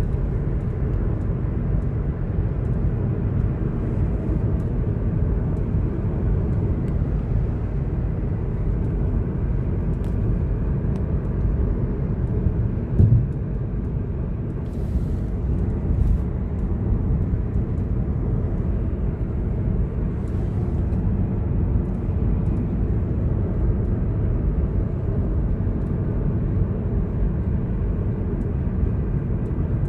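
Steady low road and engine rumble from a Honda City driving, heard from inside the car, with a few faint clicks and one louder thump near the middle.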